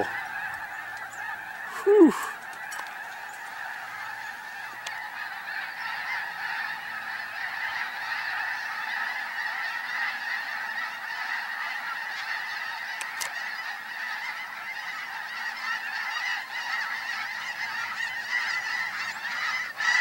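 A large flock of snow geese calling in flight: a dense, continuous chorus of many overlapping honks.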